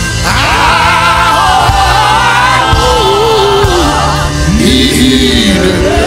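Live gospel music: a man sings lead with sliding, wavering pitch into a microphone, backed by other singers and a band.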